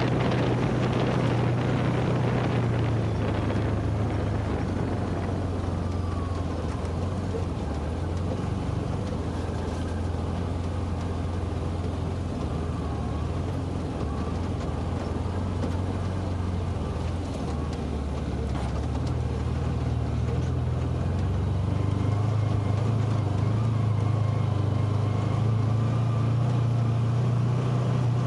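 UTV engine running steadily as the machine drives along a dirt trail. Its drone drops a little in pitch and loudness a few seconds in, then climbs back up near the end as it speeds up again.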